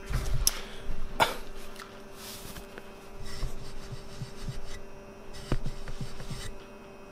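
Handling noise from a handheld camera: hands rubbing and knocking against the device near its microphone, with a few sharp clicks and a faint steady hum underneath.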